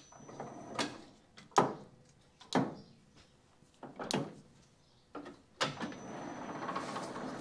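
Several sharp metal knocks and clunks as a motorcycle crankshaft half is handled and seated in a lathe's collet chuck. About five and a half seconds in, the lathe starts and runs steadily with a thin high whine, spinning the crank half.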